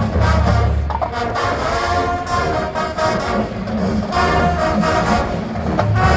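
Marching band playing, its brass horns sounding sustained chords over held low bass notes.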